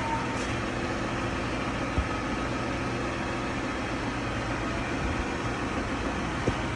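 Lexus GX470's V8 idling steadily, a low even hum, with a short knock about two seconds in and another near the end.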